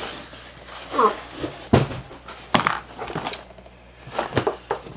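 Cardboard scraping and several sharp knocks as a boxed pair of binoculars is pulled out of a cardboard shipping carton and handled.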